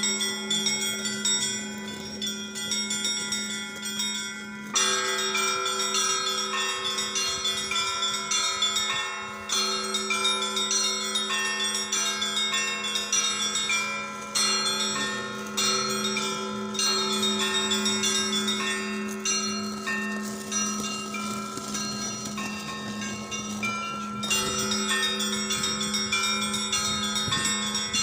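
Orthodox church bells being rung in a full peal. A big bell is struck about every five seconds, under a steady low hum, while the smaller bells keep up a quick ringing pattern over it.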